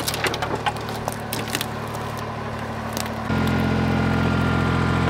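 An engine running steadily, with a few clicks and knocks in the first second; the engine gets louder about three seconds in.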